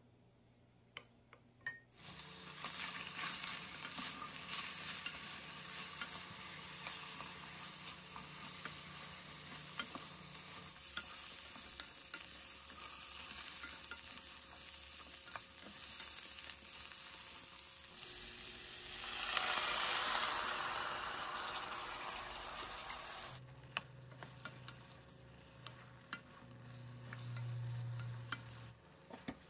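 Shishito peppers sizzling in a hot pan as they are stir-fried with a spatula, after a couple of seconds of small clicks. The sizzle swells louder for a few seconds about nineteen seconds in, then settles to a quieter hiss broken by spatula taps and scrapes near the end.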